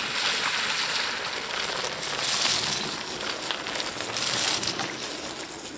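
Bicycle tyres rolling through wet mud and puddles on a rutted dirt lane, with a crackly, crunching noise that swells twice as a rider comes closer.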